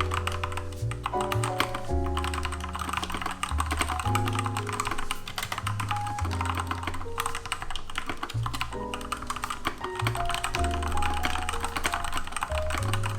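Typing on a Seenda Pudding Hacker 61 60% mechanical keyboard with Outemu Red linear switches: a fast, continuous run of key clicks and clacks. Background music with sustained notes and bass plays along.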